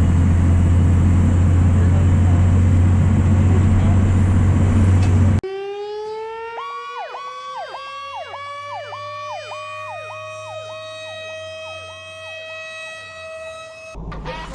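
Steady low drone of a fire truck's engine and road noise heard inside the cab. About five seconds in it cuts abruptly to sirens: a slowly rising wail with a fast, repeating up-and-down warble over it, fading near the end.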